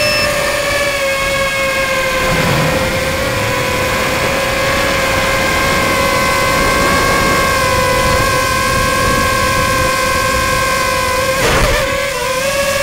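Tricopter's motors and propellers running in flight, heard up close from the onboard camera: a steady buzzing whine whose pitch sags slightly, with a brief warble near the end as the throttle changes, over a constant rushing noise.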